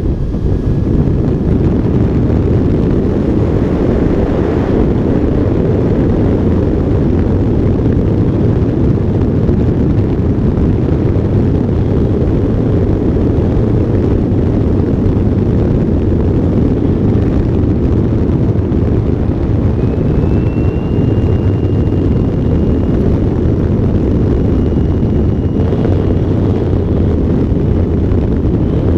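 Steady, loud wind rush and buffeting on a wing-mounted camera of an electric ultralight plane during its final approach and landing roll. A faint thin whine comes in about two-thirds of the way through and holds to the end.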